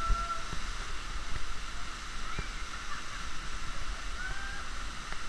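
Small waterfall pouring into a rock pool: a steady rush of falling water, with faint distant voices calling a couple of times.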